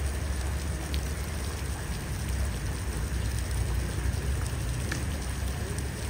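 Steady outdoor noise: an even hiss over a strong low rumble, with a few faint ticks.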